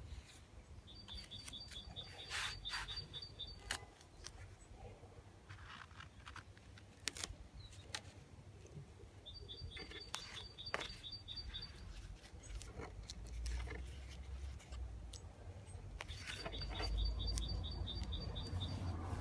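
A songbird sings the same rapid, high trill three times, about seven seconds apart. Between the trills come light taps and rustles of duct tape and paper towel being handled.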